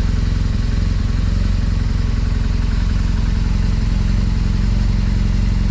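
BMW R1200GS's flat-twin boxer engine idling steadily.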